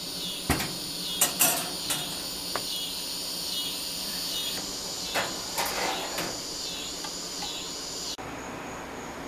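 Metal clinks and light knocks from handling hook-hung powder-coated parts inside the open door of a Masterbuilt smoker, several in the first few seconds and a cluster around the middle, over a steady high hiss.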